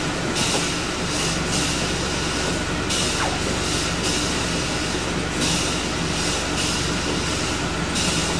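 Orion V diesel transit bus idling while stationary, with a steady low hum, as the windshield wipers sweep the rain-wet glass. A hiss comes and goes every second or so.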